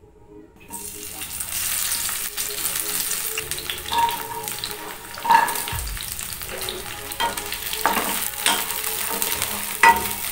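Broccoli florets and green beans sizzling in hot oil in a nonstick kadai. The sizzle starts under a second in as the vegetables hit the oil, and a spatula scrapes and knocks against the pan a few times as they are stirred.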